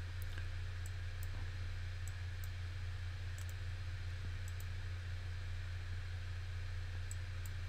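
Computer mouse clicking now and then, some clicks in quick pairs, over a steady low hum and faint hiss.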